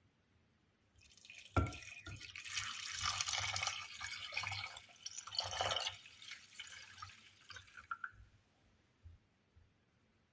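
About 600 ml of water poured into a saucepan: a knock as it starts, a steady splashing pour for about seven seconds, then a few last drips.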